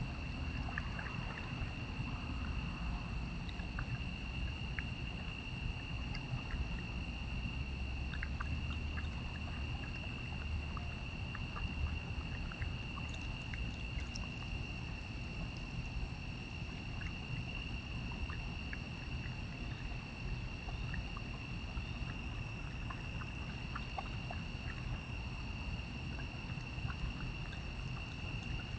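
Steady chorus of night insects, several high steady pitches holding together, over a low rumble with scattered faint clicks.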